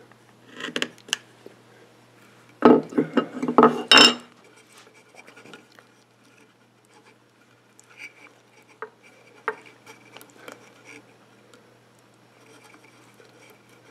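Steel hand chisel chopping a bevel on the end of a thin strip of wooden inlay stringing against the bench: a couple of light clicks, then a quick cluster of sharp knocks about three seconds in, the loudest part. After that, only faint ticks and scratches as the stringing is worked into its groove by hand.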